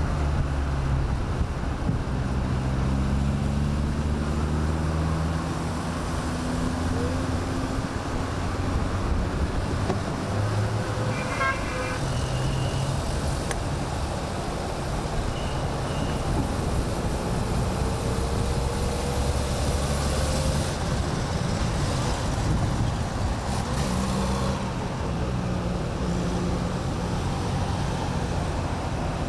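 Engines of classic cars running in a slow procession, a steady low drone with road and tyre noise and engine pitch rising and falling gently. A short car horn toot sounds a little over ten seconds in.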